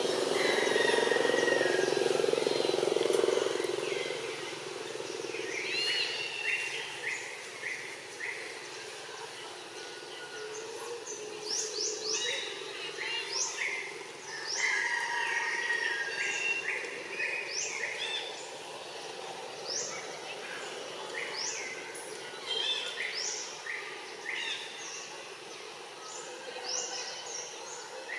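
Birds chirping: many short, falling chirps and twittering calls repeated throughout. Under them is a low hum, loudest for the first few seconds and then fading.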